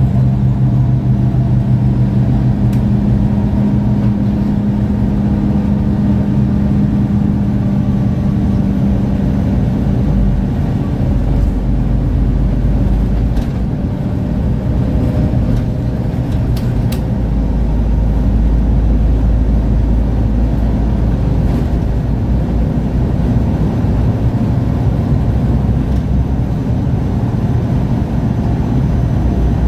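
Diesel engine of a MAN Lion's City G articulated bus running, a loud steady low drone. About a third of the way in, the note changes to a deeper, rougher rumble.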